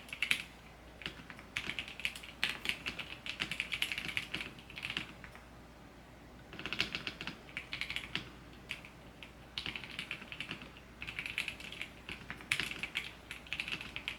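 Typing on a computer keyboard: fast runs of key clicks in bursts, with a pause of about a second and a half midway.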